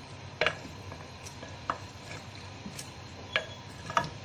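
Wooden spoon stirring meat in a clay cooking pot (handi), with a few sharp knocks of wood against clay.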